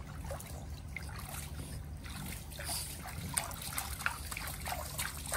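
Water trickling and dripping from a cupped hand into a shallow inflatable paddling pool, with small splashes that come thicker in the second half.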